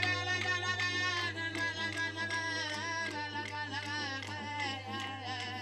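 Didgeridoo drone accompanied by rhythmic clapstick taps, about three a second at first, thinning out after about a second.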